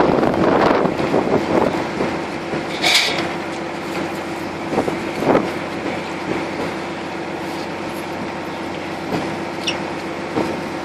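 A boat's engine running steadily, heard on the open deck with wind and water noise. A brief high-pitched squeak about three seconds in.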